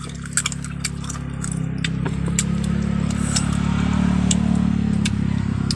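A low engine hum that swells louder over the middle few seconds, with crisp crunching as unripe green mango is bitten and chewed.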